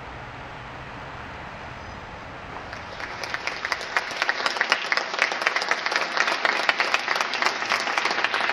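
A steady low background noise, then a large audience breaks into applause about three seconds in, quickly building to loud, dense clapping.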